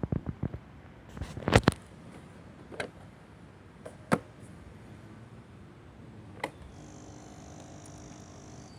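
Handling noises around a Suzuki Let's 5 scooter before it is started: a run of sharp clicks and knocks, the loudest a pair about one and a half seconds in. A faint steady hum sets in near the end.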